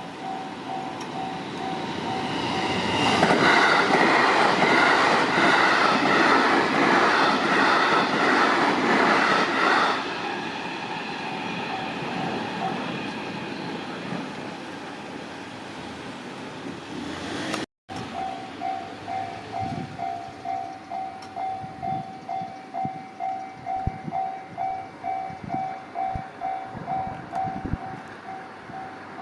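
Japanese level crossing's electronic warning bell ringing in a steady two-tone pulse, about twice a second. For several seconds it is drowned out by a train rumbling over the crossing. After a short break the bell rings on alone.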